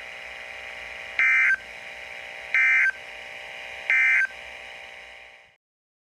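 Emergency Alert System end-of-message code: three short, identical bursts of the SAME digital data tone, evenly spaced about a second and a third apart, over a steady broadcast hiss that cuts off near the end. The three bursts signal that the alert message has ended.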